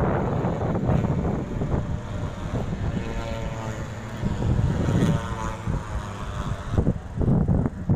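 Racing motorcycle passing on the circuit, its high-revving engine note clearest about three seconds in, over wind buffeting the microphone.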